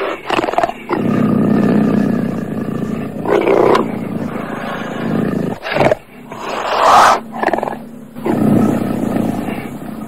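Cougar (mountain lion) roaring several times in a row, the loudest call about seven seconds in.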